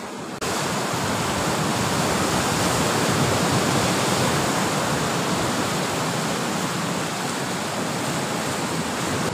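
Steady rushing wash of sea surf at the shore, starting abruptly about half a second in and holding even throughout.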